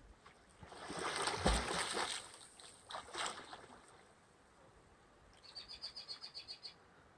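Lake water splashing as a person drops into it and goes under, with a loud splash and a low thump about a second in and a smaller splash around three seconds. Near the end comes a rapid high trill of about a dozen quick notes.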